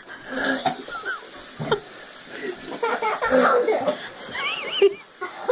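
A man retching over a toilet bowl, gagging on a spoonful of dry ground cinnamon, while people laugh, with high-pitched laughter near the end.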